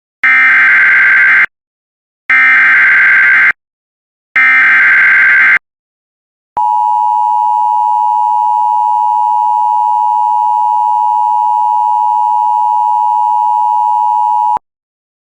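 Emergency Alert System header: three SAME data bursts, each a harsh digital warble of about a second with about a second of silence between them. Then the two-tone EAS attention signal is held steady for about eight seconds and cuts off suddenly, the signal that a spoken emergency warning follows.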